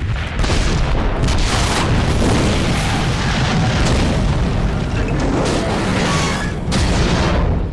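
Sci-fi sound effect of an AT-TE walker being destroyed: a heavy explosion boom with a deep, continuous rumble and crackling blasts running through it for about eight seconds, then cutting off abruptly.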